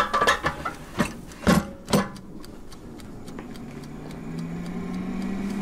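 Jese air fryer's basket drawer knocking into place with a few clunks, then its fan motor starting and spinning up in a rising hum, while the mechanical timer ticks steadily.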